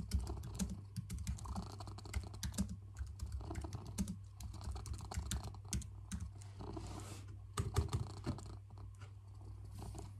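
Fingers typing quickly on a low-profile computer keyboard, the key clicks thinning out near the end, over a cat's low steady purr.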